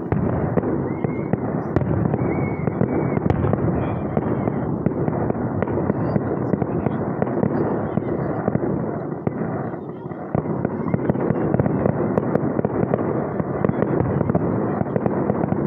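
Aerial fireworks shells bursting in quick succession: a dense, continuous run of booms and crackle with a deep rumble, easing briefly about ten seconds in.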